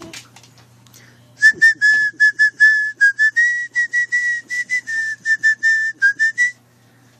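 A small toy whistle blown in quick short toots, about four a second, each at the same shrill pitch with a breathy edge. The toots start about a second and a half in and stop shortly before the end.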